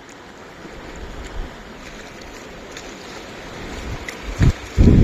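Sea waves washing on a beach, a steady rush that slowly grows louder. Near the end, wind buffets the microphone in loud low blasts that drown the surf.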